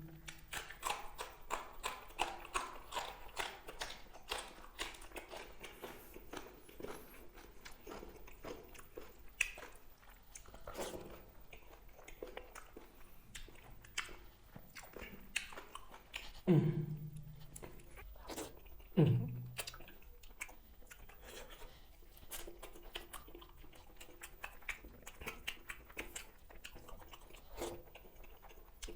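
Close-miked chewing and biting of chicken leg biryani and green chili: dense, irregular wet mouth clicks and crunches. Twice, about two-thirds of the way through, a short voiced sound falling in pitch comes from the eater.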